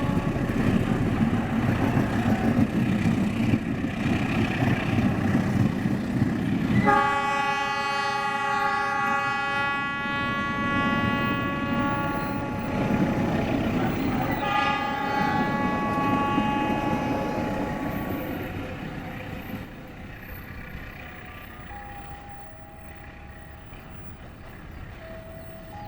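A passing train's wheels rumbling on the rails, with the locomotive's multi-tone horn sounding a long blast about seven seconds in and another around thirteen to seventeen seconds. The train noise then fades away after about eighteen seconds.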